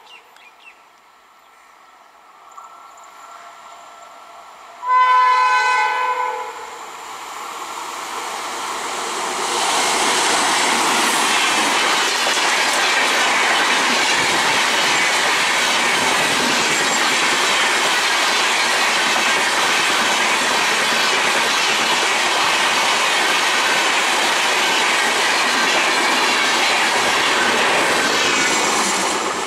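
A train horn gives one loud blast about five seconds in. Then an Indian Railways express passenger train runs past close by, with the wheels clacking over the rail joints and the coaches rattling in a steady rush that builds up over a few seconds and carries on.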